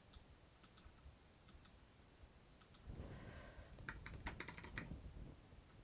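Faint typing on a computer keyboard: a few scattered key taps, then a quick run of keystrokes about four seconds in.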